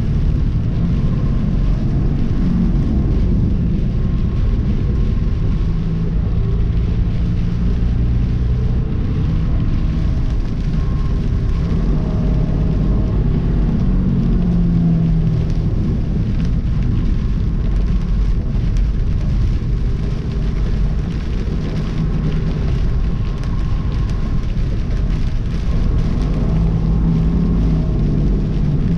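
Inside a semi-truck's cab on the move in rain: the diesel engine's steady drone mixed with tyre, road and rain noise.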